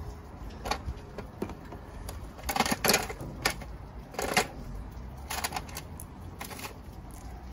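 Outboard water pump housing being pushed and twisted down over the driveshaft onto the gearcase as the new impeller goes in: a scattering of short metallic clicks and light knocks, loudest in a quick cluster about three seconds in.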